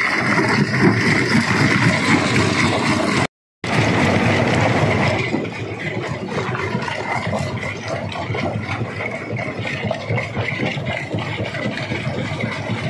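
Stone crusher running and crushing rock: a dense, continuous grinding and rattling, with a steady high tone over it in the first few seconds. The sound drops out completely for a moment about three seconds in, then runs on slightly quieter.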